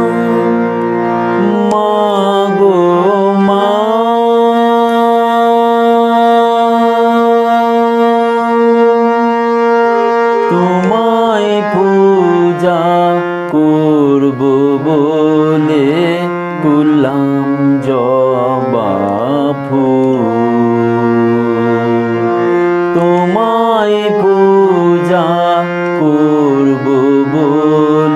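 The opening of a Shyamasangeet, a Bengali devotional song to Kali: a melody of long held and gliding notes over a steady drone.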